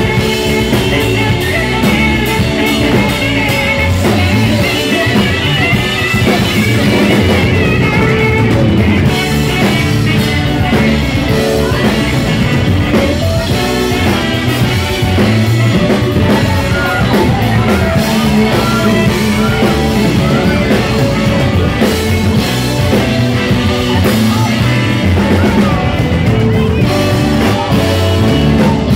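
Live pop-rock band playing loudly, with electric guitar, bass and drum kit under a male lead vocal.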